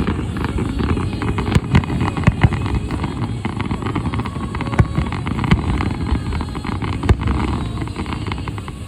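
Fireworks barrage: a continuous heavy rumble of many shells going off together, with crackling and several sharp bangs standing out, about five of them spread through the stretch.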